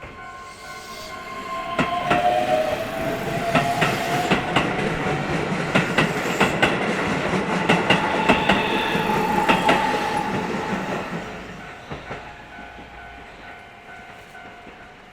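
A train passing at a railroad crossing: its wheels clack over the rail joints in an even rhythm, with a rising whine. It builds about two seconds in and fades away over the last few seconds.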